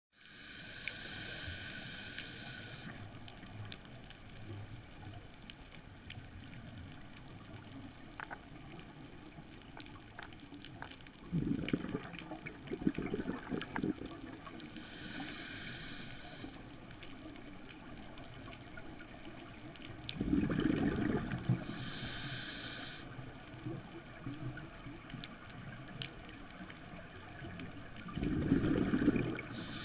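Scuba diver breathing through a regulator, heard underwater: hissing inhalations through the regulator alternate with rumbling bursts of exhaled bubbles, three of them, about every eight or nine seconds.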